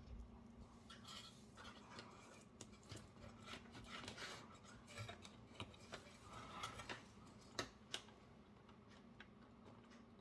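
Faint, scattered small clicks and rubbing as fingers work a small ribbon-cable connector into its socket on the monitor's circuit board.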